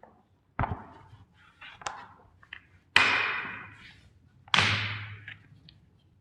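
Hammer striking plastic toy vehicles: a thud, a few lighter knocks, then two heavy blows about a second and a half apart, each trailing off over about a second.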